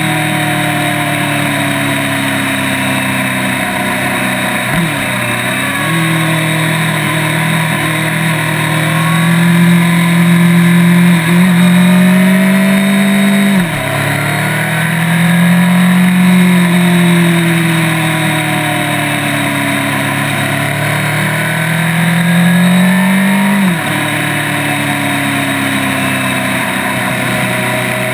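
Honda CB1000's inline-four engine under way at speed, heard close up from a crash-bar-mounted microphone. Its pitch climbs steadily as it pulls, then drops sharply about four times.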